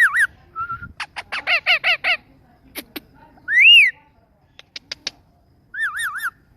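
Ringneck parrot calling: a warbling double whistle at the start, a quick run of about five harsh chattering calls, sharp clicks, then a single loud whistle that rises and falls, the loudest sound. More clicks follow, and another warbling whistle comes near the end.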